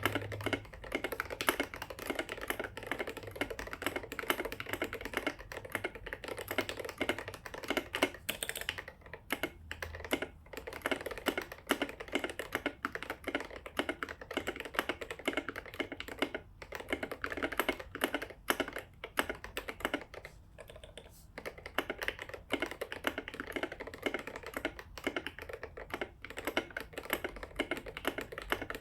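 Fast, continuous typing on an IDOBAO ID80 mechanical keyboard with lubed and filmed Gateron North Pole switches, a PC plate, case foam and SA keycaps. It breaks off for a few brief pauses, the longest about two-thirds of the way through.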